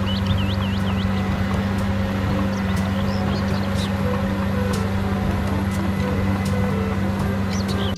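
Crawler bulldozer's diesel engine running steadily under load as the blade pushes soil, a constant low drone. Birds chirp briefly near the start and again near the end.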